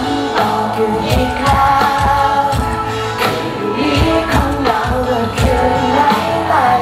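Live band performance: a male lead singer singing into a microphone over electric guitar and a steady drum beat, heard loud through the PA.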